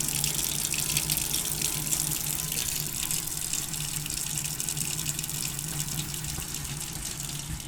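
Water running steadily from a tap into a sink, a continuous splashing stream rather than separate drips.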